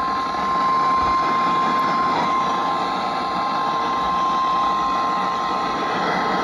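NOAA Weather Radio 1050 Hz warning alarm tone: a single steady, unbroken beep held for several seconds over heavy radio static hiss, the signal that a new weather warning message is about to be read.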